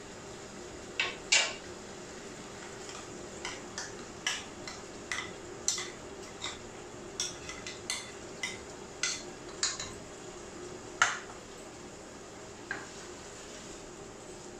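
A spoon knocking and scraping against a bowl and a cooking pot as yogurt and pickle masala are spooned into the pot and stirred in: an irregular string of clinks and knocks, loudest about a second in and about eleven seconds in. A steady low hum runs underneath.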